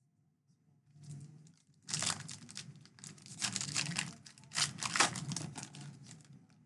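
A Donruss baseball card pack's wrapper being torn open and crinkled by hand, a dense crackle starting about a second in, loudest around two seconds and again around five seconds in.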